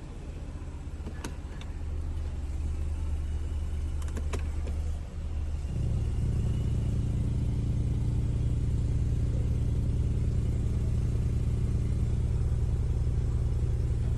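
BMW 520i's N20 turbocharged four-cylinder engine running, with a few sharp clicks in the first five seconds. After a brief dip about five seconds in, a louder steady low drone sets in and holds. This is the weird noise in reverse gear that the owner links to the aluminium charge pipe and boost pipe.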